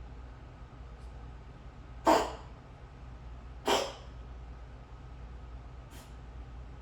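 Khao Manee kitten coughing: two short, sharp coughs about a second and a half apart, and a much fainter one near the end.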